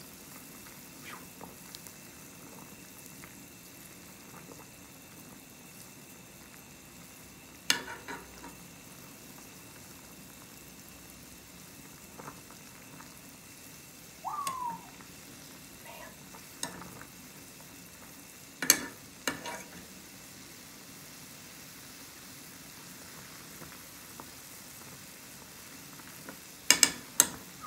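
Pot of water at a rolling boil with instant ramen noodles in it: a steady faint bubbling hiss. A few sharp clinks and knocks come and go, loudest in a quick cluster near the end.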